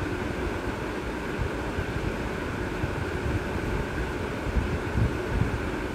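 Steady background rumble and hiss with a faint steady hum, with a few stronger low gusts near the end.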